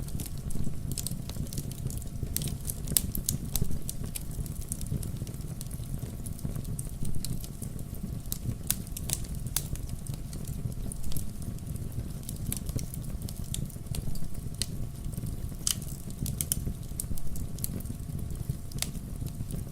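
Wood fire burning in a fireplace: logs crackling with frequent irregular sharp pops over a steady low rumble of the flames.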